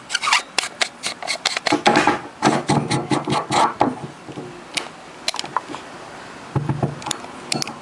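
Handling noise from a Kadosh K-402M wireless microphone being picked up and worked by hand: a quick run of clicks and taps with scratchy rubbing, busiest in the first half, and a dull knock near the end. The mic is failing to give sound, and its switch is suspected.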